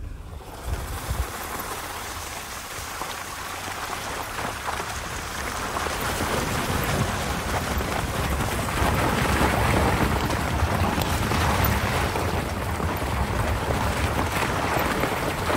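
A Lexus ES on snow chains driving through wet slush and puddles: a steady rushing noise of the tyres, the chains and splashing slush, growing louder over the first half and then holding.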